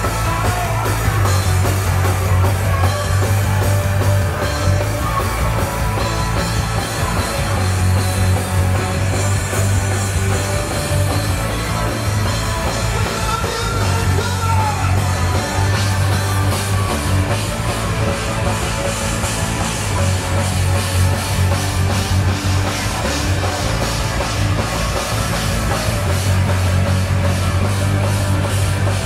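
Rock music played by a full band, with drum kit and a steady heavy bass line.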